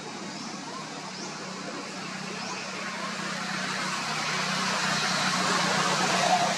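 A motor vehicle drawing nearer: a steady engine hum under a rushing noise that grows steadily louder, with a few faint short high chirps in the first two seconds.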